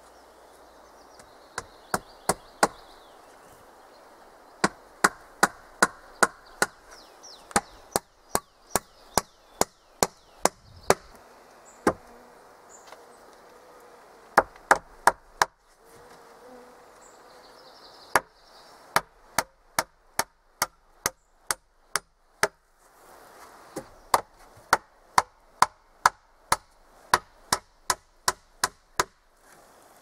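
Sharp blows of a hand tool on wood, coming in runs of several strikes at about two a second with short pauses between runs.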